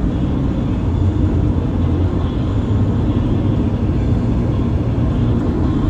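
Steady low rumble of a moving vehicle, running evenly without a break.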